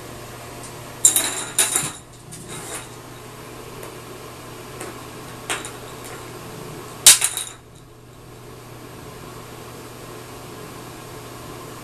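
A small plastic toy clattering on the bottom of a bathtub as a cat bats it about: a cluster of sharp clacks about a second in, a few light taps, and the loudest clatter about seven seconds in. A steady low hum runs underneath.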